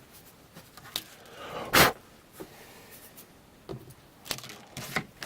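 A blade trimming hardened expanding foam off a repaired fishing rod: scattered short clicks and scrapes, with one louder scrape about two seconds in.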